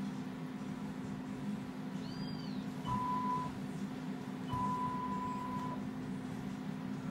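CNC stepper motors jogging the X axis twice: a steady whine of about half a second, then a longer one of over a second, each starting with a soft thump, over a constant low hum.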